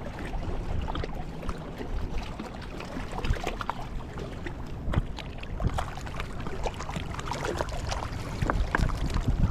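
Wind buffeting the microphone with a low rumble over water lapping, with scattered small clicks.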